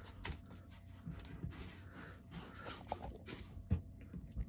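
Faint scattered taps and scuffs of a kitten moving at the flap door of a covered plastic litter box.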